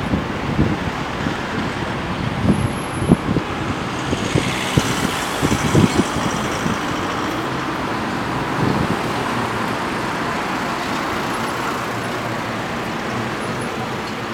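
Road traffic: cars and a van driving past close by, a steady mix of tyre and engine noise, with one vehicle passing closest about five seconds in. A few short low thumps come early on top of the traffic.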